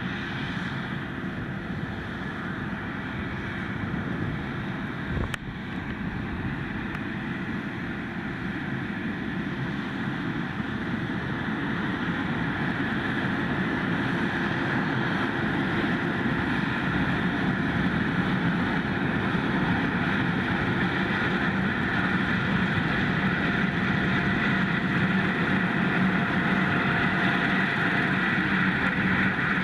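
Heavy harvest machinery (combine harvester and tractor) running steadily, growing gradually louder, with wind on the microphone. There is one sharp click about five seconds in.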